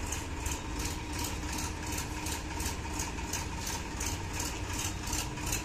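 Massey Ferguson 7250 tractor's three-cylinder diesel engine idling steadily, with a light rhythmic ticking about four times a second over a low rumble.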